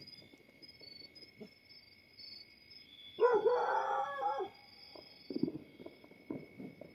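A dog howls once, a wavering call of about a second, roughly three seconds in, over faint steady high-pitched tones.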